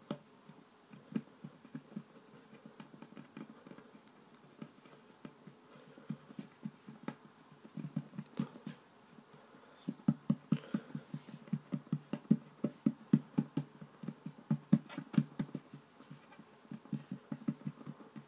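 Hands patting and pressing a ball of play dough flat on a wooden tabletop: soft dull thumps, scattered at first, then coming quickly, several a second, from about halfway through.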